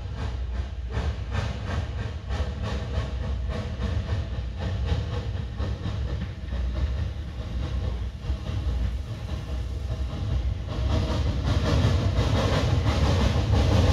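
Small Porter narrow-gauge steam locomotive working toward the listener, its exhaust chuffing at a steady, even beat over a low rumble. It grows louder near the end as it draws close, with hiss and wheels on the rails filling in.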